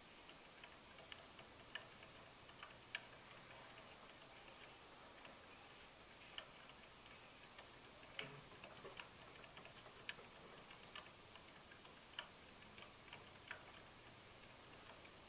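Near silence: a steady hiss with faint, irregular clicks and ticks scattered through it.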